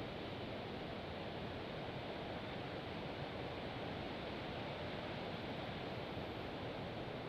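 Strong wind blowing, a steady rushing noise with no pauses.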